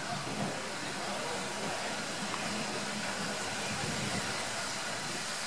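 BR Standard Class 9F steam locomotive 92214 letting off a steady hiss of steam, with no exhaust beats.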